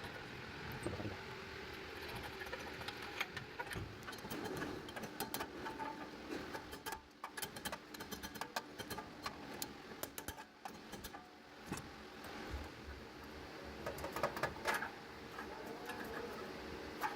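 Metal hand tools and parts clinking and tapping irregularly, over a low steady hum, as the rear wheel hub assembly is worked on.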